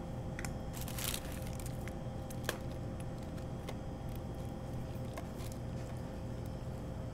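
People eating sticky, sauce-glazed chicken wings: scattered small clicks and smacks, with a brief rustle about a second in, over a steady electrical hum in the room.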